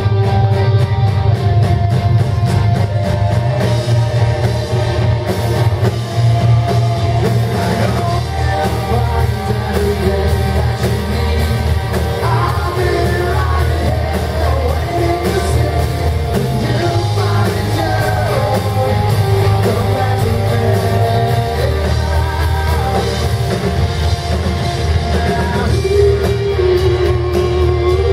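Live rock band playing loudly, with electric guitars, bass and drums and singing over them, heard from the audience in a hall.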